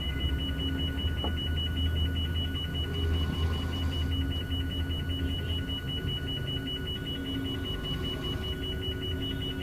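A sleeping tiger snoring: a deep, low rumble, strongest for the first five seconds or so and then weaker. A steady, rapidly pulsing high-pitched tone runs under it throughout.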